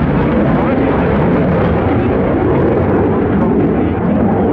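Jet noise from an F/A-18F Super Hornet's twin General Electric F414 turbofan engines in flight: a loud, steady rush.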